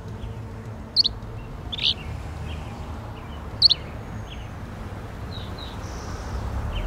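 Small birds chirping: scattered short, sharp chirps, three louder ones about one, two and nearly four seconds in, over a steady low background rumble.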